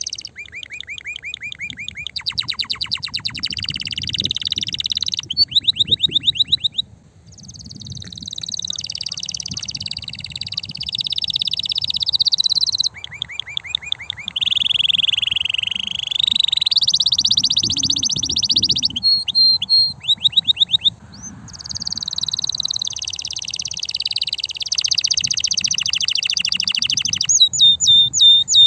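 Male domestic canary singing hard: long, loud phrases of fast trills and rolling repeated notes, with brief pauses about seven seconds in and again past the twenty-second mark. This is the excited breeding-season song used to bring hens into condition.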